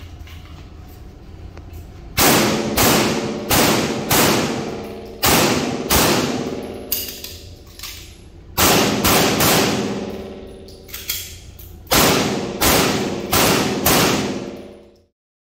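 Sig Sauer P320 X5 Legion pistol fired in quick strings, about fifteen shots in groups of two to five, starting about two seconds in, each shot ringing off the walls of the indoor range. The sound cuts off abruptly near the end.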